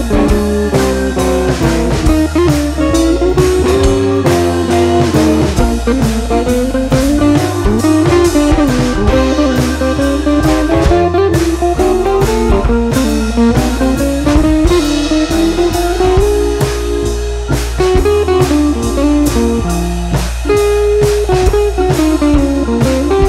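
Background music: a blues-style guitar melody with sliding, bending notes over bass and a steady drum-kit beat.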